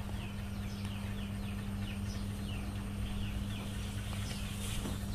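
Birds chirping over and over, short falling chirps a few times a second, over a steady low hum.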